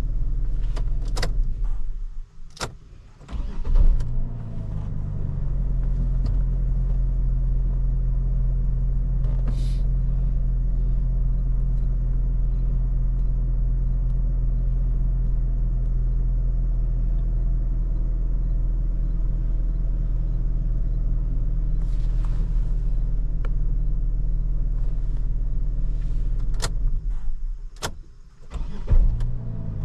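Saab 9-7X engine idling steadily. About two seconds in, after a few clicks, it stops. Near four seconds it starts again and settles back to idle, and the same stop-and-restart comes again near the end.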